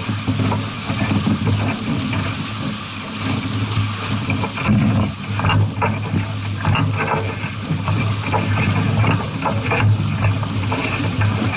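Water rushing and splashing in irregular slaps, over a steady low hum.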